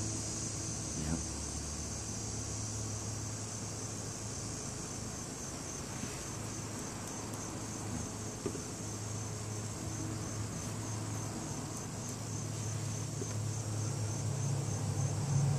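Crickets chirping in a steady, high, evenly pulsing chorus. A low engine rumble swells near the end.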